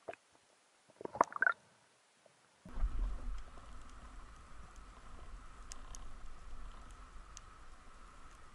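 Underwater camera audio: a few sharp clicks and knocks near the start, then from about a third of the way in a steady low rumble of water moving past the camera as the freediver glides over the reef, with a faint steady hum and scattered faint ticks.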